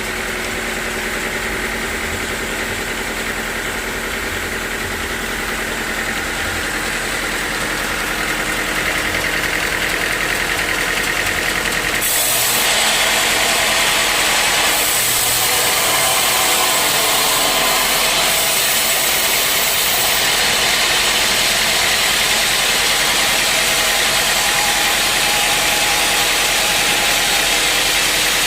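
Sawmill machinery running steadily with a constant mechanical hum; about twelve seconds in, a louder hissing noise joins and stays to the end.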